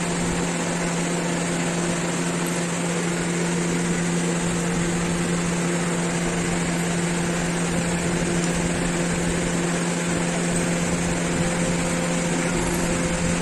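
A steady mechanical hum: a constant low drone over an even hiss.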